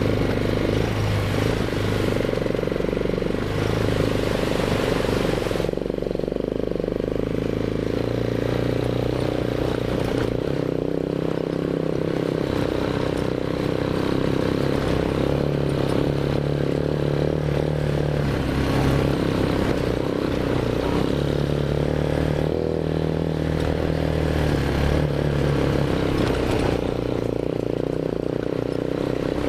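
ATV engine running under way on a trail, its pitch stepping up and down every few seconds as the throttle changes.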